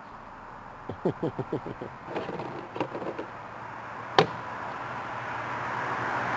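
A few short voice-like sounds, then a single sharp click about four seconds in as a plastic roadside mailbox is handled; road noise from an approaching car rises near the end.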